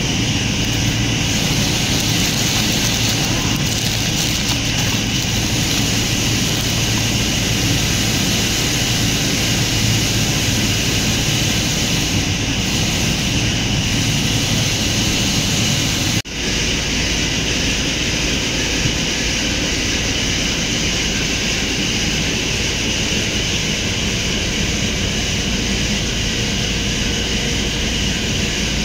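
Steady mechanical drone with a constant hum, from an unseen machine running throughout, cutting out for an instant about sixteen seconds in.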